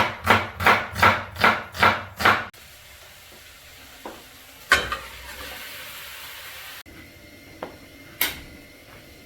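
Kitchen cooking sounds: first a run of seven sharp utensil strikes, about three a second. Then food sizzles steadily in a pan, with a single loud clatter about halfway through and a few lighter knocks near the end.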